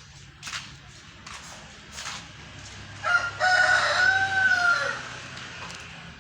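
A rooster crowing once, about three seconds in: a single call of about two seconds that rises, holds, then falls away.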